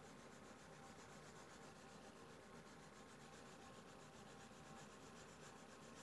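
Faint scratching of a pastel stick rubbed over drawing paper in quick, even back-and-forth strokes.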